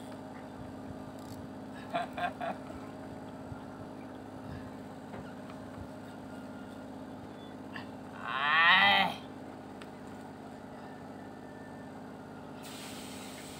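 Steady low hum of a fishing boat's engine, with one loud, drawn-out voice-like call about a second long some eight seconds in.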